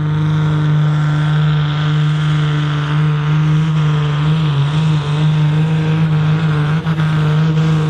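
Volvo BM 810 pulling tractor's diesel engine running hard at a steady high speed under full load while dragging the pulling sledge, with a brief dip in pitch about four and a half seconds in.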